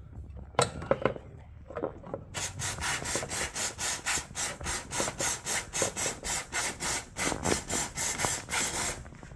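Aerosol throttle body cleaner sprayed onto the throttle body in rapid short hissing bursts, about three a second, starting a little over two seconds in. Before that, a few handling knocks.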